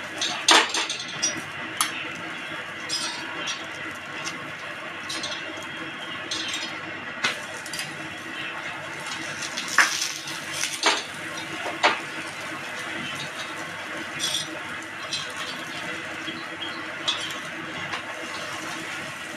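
A steel spoon clinking and scraping against an iron tawa while a paratha is pressed, oiled and turned over on it. The sharp clicks come irregularly over a steady hiss.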